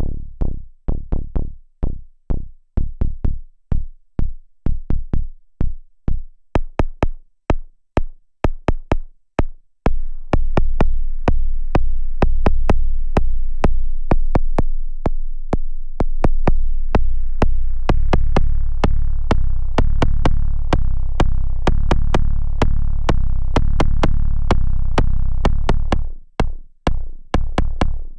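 Noise Engineering Tymp Legio Eurorack drum module triggered at about three hits a second, giving synthetic kick and sub hits: each a click followed by a falling low tone. About ten seconds in, the hits start ringing long enough to run together into a continuous low sub drone, then turn short and punchy again near the end.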